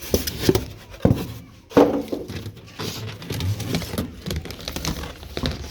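Irregular knocks and thumps, the loudest about one and two seconds in.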